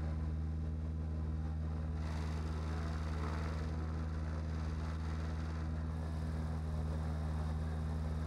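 Gyroplane engine and propeller idling steadily, with a faint hiss that grows slightly about two seconds in.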